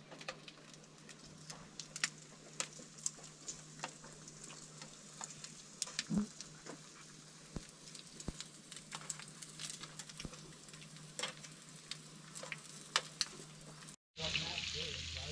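Food sizzling in a frying pan over campfire coals, with scattered sharp pops and spits. Near the end the sound cuts out for a moment and comes back as a louder, denser sizzle of food cooking on a grill over the coals.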